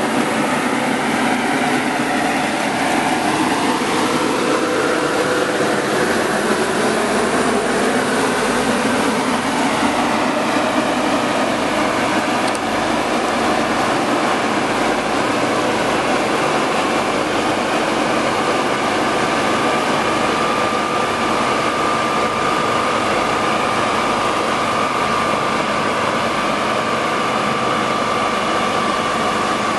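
5XZD-15AC grain cleaner and grader running steadily under load, its fans and grading mechanism making a continuous mechanical noise. A few pitches shift in the first several seconds, and a steady high whine joins for the last third.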